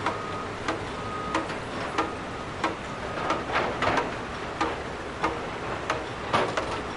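Construction-site ambience: short, sharp knocks or clicks repeating roughly every two-thirds of a second, with a few bunched closer together near the end, over a steady rumbling background noise.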